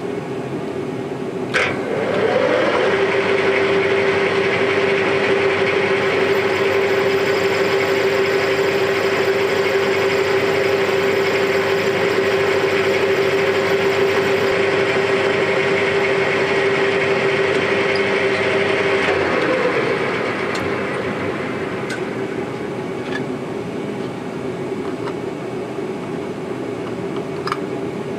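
Metal lathe switched on with a click, its four-jaw chuck spinning up and running steadily with a constant whine for about seventeen seconds, then switched off and running down, leaving a steady workshop hum and a few light ticks.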